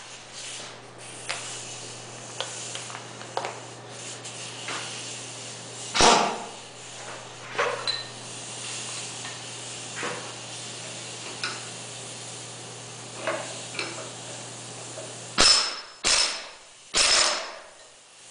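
Metal clicks and clinks of tools and parts being handled at a small engine's overrunning clutch. There is a loud knock about six seconds in and three loud metallic knocks in quick succession near the end, over a steady low hum.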